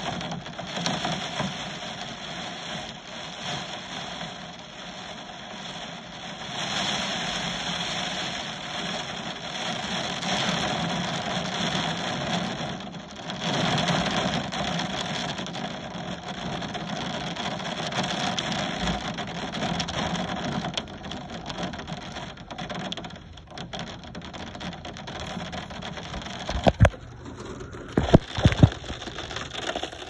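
Heavy rain pouring steadily, rising and falling in intensity. A few sharp knocks near the end.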